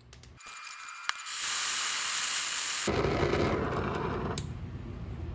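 Handheld gas torch heating a silver coin for stamping: gas hissing from about half a second in, a sharp click near one second, then from about three seconds in the flame burning with a loud, deep rushing sound.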